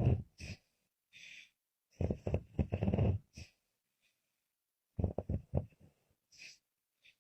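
A woman snoring: loud rattling snores about every three seconds, with short soft hissing breaths between them.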